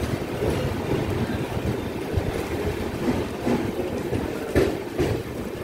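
Passenger express train pulling out and gathering speed, its coaches rumbling steadily on the rails with a couple of sharp knocks near the end, and wind buffeting the microphone.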